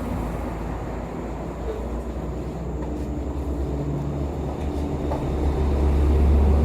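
Low engine rumble of passing motor traffic, growing louder near the end as a vehicle comes closer.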